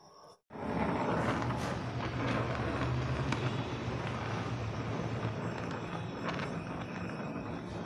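Oxy-acetylene gas welding torch flame hissing steadily on a copper sheet butt joint, with scattered small crackles and a steady low hum underneath. It starts abruptly about half a second in.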